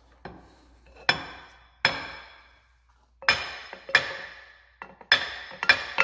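About eight hammer blows on a steel axle assembly of a Ford 8-inch rear end, each ringing briefly, knocking the axle and its retainer plate loose. The blows come faster toward the end.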